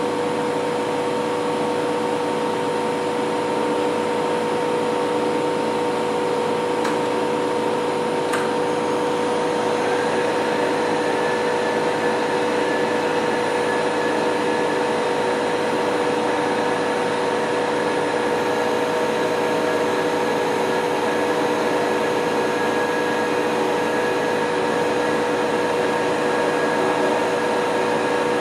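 Novar CNC bed milling machine running under power: a steady motor whine holding fixed pitches, with a higher tone joining about ten seconds in.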